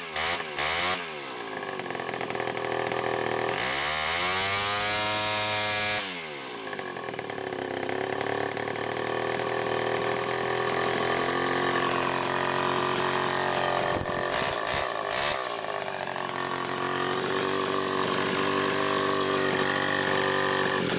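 Homelite XL-100G grinder's two-stroke chainsaw engine being blipped several times, then revved up and held at high speed for a couple of seconds. Near the halfway point it drops back to a lower speed and runs on steadily, the revs wavering a little.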